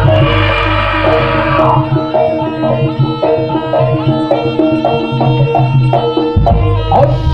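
Live jaranan gamelan music: kendang hand drums keep a driving beat under gongs and bronze metallophones that repeat a short melodic pattern, with a bright noisy swell over the first two seconds.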